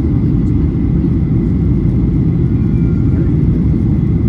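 Steady low rumble of airliner cabin noise from a Boeing jet's engines and airflow, heard from inside the cabin, with a faint thin whine above it.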